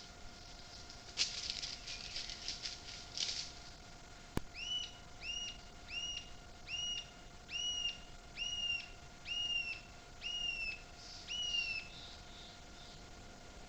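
Brief rustling, a single sharp click, then an animal calling about a dozen times in an even series of clear, high chirps, each rising and falling in pitch.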